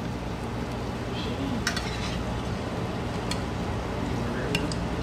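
Snapper frying in butter in a pan: a steady sizzle over a low hum, with a few light clinks of a utensil against the pan.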